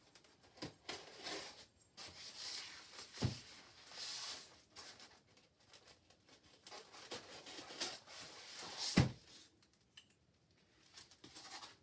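Packaging rustling and scraping as a microwave kiln is worked out of its box, with a dull bump about three seconds in and a louder one about nine seconds in.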